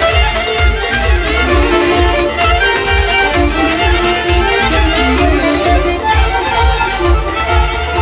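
Live band music: a violin playing the lead melody over a steady low beat.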